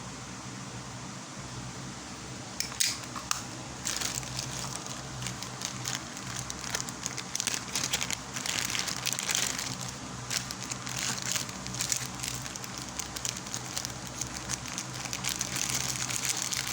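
Packaging crinkling and crackling as a parcel is unwrapped by hand, a dense run of crackles that starts about three seconds in.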